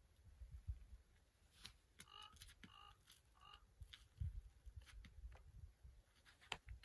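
Near silence, with low wind rumble on the microphone and a few faint scuffs and ticks of hands and climbing shoes on granite. Three short, faint chirps come about two to three and a half seconds in.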